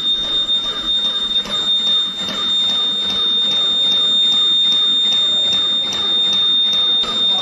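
Small electric motor of a model shake table running, with a steady high whine and an even ticking rattle a few times a second as it shakes a cardboard model building.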